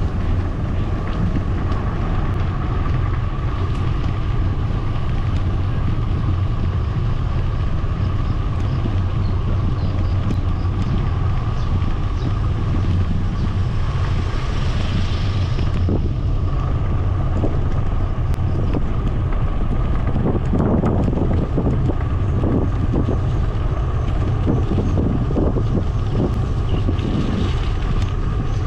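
Wind buffeting the microphone of a camera on a moving bicycle: a steady low rumble with a thin steady tone above it, and a few knocks and rattles in the second half.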